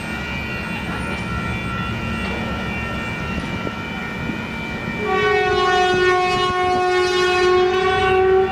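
DSG-class diesel shunting locomotive running light with a steady engine rumble. About five seconds in it sounds its horn in one long, loud blast of about three and a half seconds.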